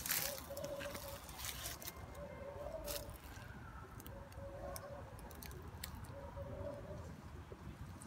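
Dry fallen leaves crunching and crackling, loudest in the first second, with scattered crackles after. A short call repeats about once a second in the background.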